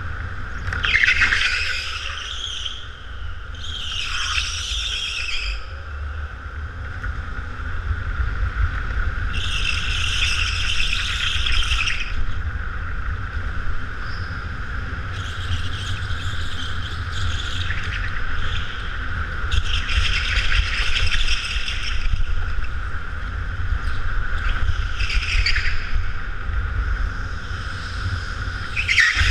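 Go-kart running flat out, a steady whine over low rumble, with its tyres squealing through the corners in about seven bursts of one to two seconds each.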